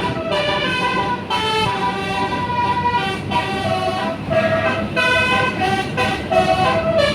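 Telolet horn of a tour bus playing a quick melody of short, stepping horn notes, several a second, with no break.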